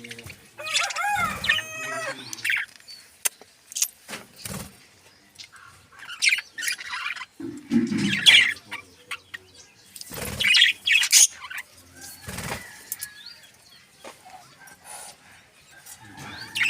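Pet budgerigars and finches chirping in short bursts, with wings flapping and a few brief thumps among them.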